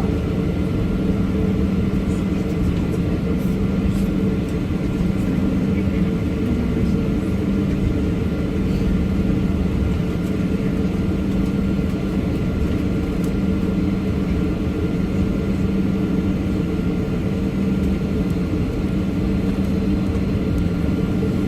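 Airliner engines heard inside the passenger cabin: a steady, even low drone that neither rises nor falls.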